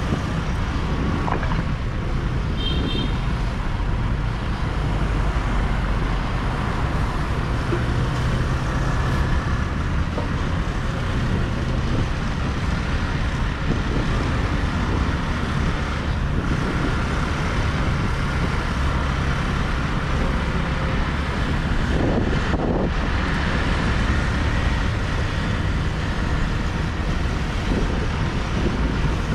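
Steady city street traffic noise: cars and a motor scooter running in the road alongside, with a constant low rumble.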